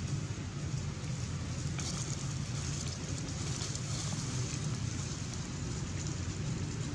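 Steady outdoor background noise: a low rumble under an even hiss, with a few faint clicks.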